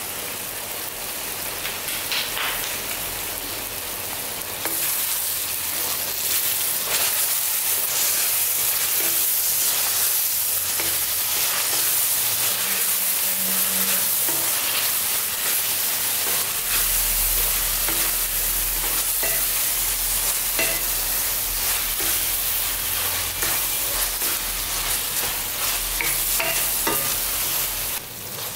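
Tomatoes and onions sizzling in oil in a metal kadai while a spatula stirs them, its strokes scraping and tapping against the pan. The sizzle gets louder about five seconds in.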